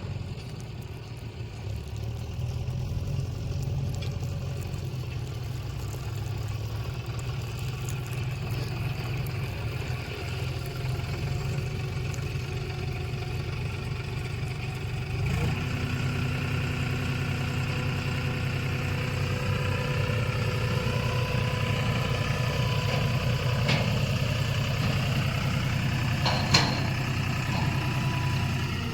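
Diesel engine of the digging and loading machinery running steadily. About halfway through it gets louder and picks up higher steady tones that creep upward, as the engine works harder. A single sharp knock sounds near the end.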